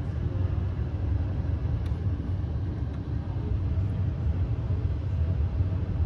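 ClimateMaster water source heat pump running with its new direct-drive blower motor, a steady low rumble of air and motor. The motor is drawing about 1.1 to 1.3 amps, under its 2.3 amp rating, a sign that it is running normally.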